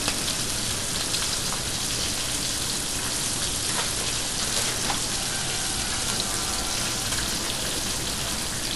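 Ground-beef burger patties and fries frying in hot pans: a steady sizzle with a few faint pops.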